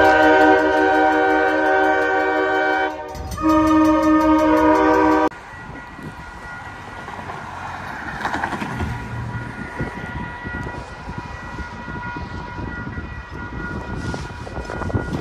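Diesel locomotive horn sounding two blasts, the first about three seconds long and the second about two. After them it cuts to a level-crossing warning bell ringing steadily over passing traffic.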